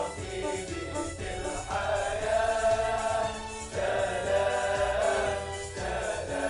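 Background music: a choir singing sustained chords over a low accompaniment.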